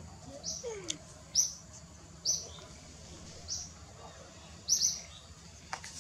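A bird calling with short, high chirps about once a second, two in quick succession near the end. A single sharp click comes just before the end.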